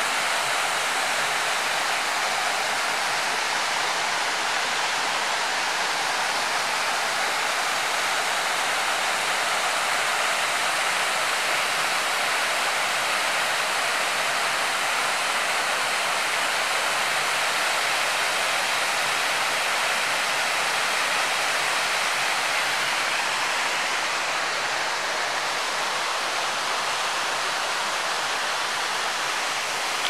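Waterfall pouring into a rock pool: a steady, even rush of falling water, a little softer in the last several seconds.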